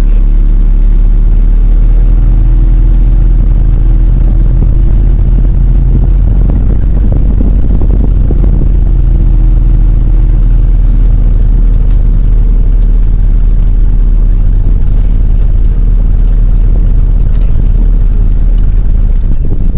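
Safari vehicle's engine running loud and steady as the vehicle moves slowly forward, a low drone.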